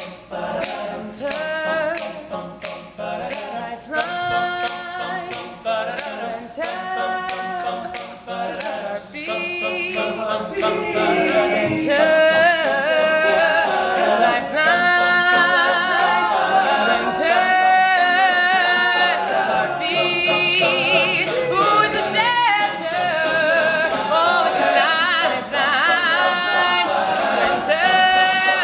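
Men's a cappella group singing, a lead voice over close-harmony backing voices. Sharp clicks keep a beat about twice a second for the first several seconds; from about ten seconds in the group grows louder, with full, held chords.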